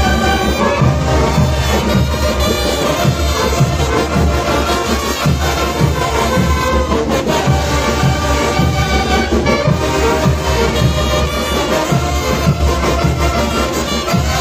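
Marching band playing live as it marches, saxophones and brass carrying the tune over a steady drum beat.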